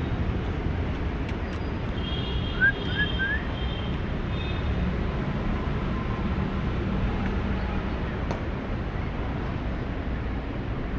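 Steady low outdoor rumble, typical of distant road traffic, with three quick rising chirps about two and a half seconds in.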